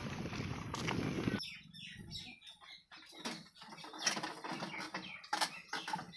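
A steady rushing noise that cuts off about a second and a half in, then irregular knocks, creaks and rattles of a wheeled cart carrying a diesel water-pump engine as it is pushed over rough grassy ground.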